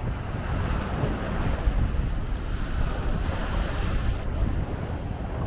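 Small waves breaking and washing up over a sandy beach, one surge of wash swelling about three and a half seconds in, with strong wind buffeting the microphone as a low rumble.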